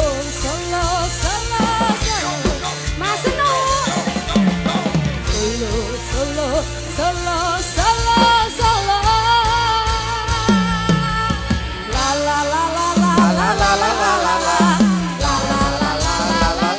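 A live dangdut band playing: a woman sings lead into a microphone over a drum kit, bass and band accompaniment.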